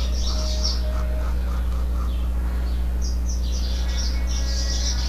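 Small birds chirping in quick runs of high notes, twice, over a steady low electrical hum.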